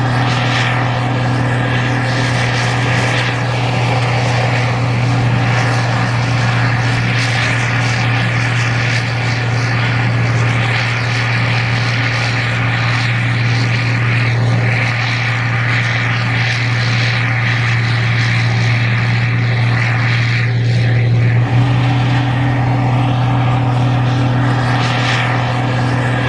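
Gleaner R52 combine running steadily, a constant deep engine hum with an even mechanical rush over it and no change in speed.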